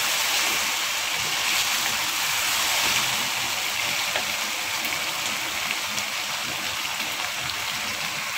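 Mutton keema and potato cubes frying in oil in a wok, giving a steady sizzling hiss, with a wooden spatula stirring at the start.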